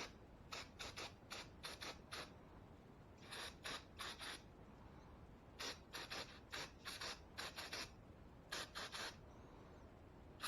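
Quick, faint rubbing strokes in four short bursts with pauses between: a VVT solenoid being wiped clean by hand.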